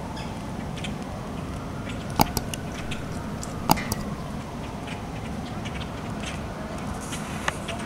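Steady outdoor background noise with a few sharp clicks: a close pair a little over two seconds in, another pair near four seconds, and a single one near the end.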